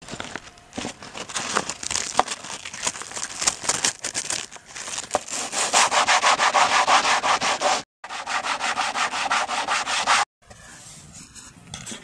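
Sandpaper rubbed back and forth by hand over a cured polyester-filler patch on a countertop, in quick rough strokes, several a second, loudest in the middle. The sound cuts off abruptly twice, and after the second break it is quieter.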